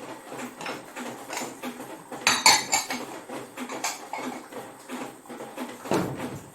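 A string of light clinks and knocks, with a louder clatter a little over two seconds in and another near the end.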